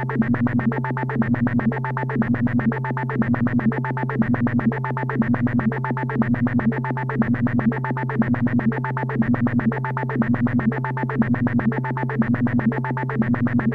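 Synthesizer vocoder effect: a buzzy electronic tone over a steady low drone, with a short pitched figure that repeats about once a second.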